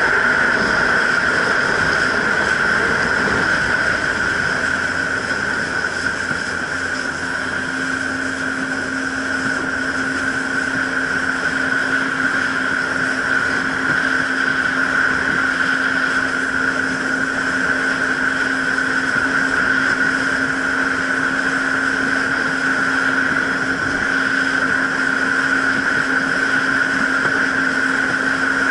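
Jet ski engine running steadily under way over a continuous rush of noise. Its hum settles onto one steady pitch about eight seconds in.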